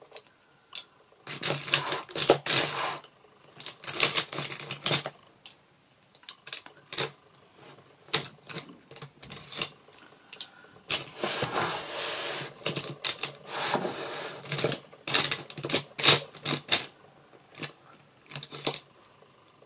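Small hard objects being rummaged through and handled: irregular clusters of clicks and clatter, some coming in quick runs like typing, with short pauses between them.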